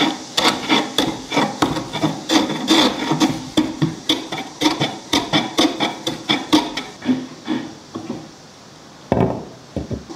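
A hand tool striking wood in quick, regular blows, about three a second. After about seven seconds the blows stop, and one more comes near the end.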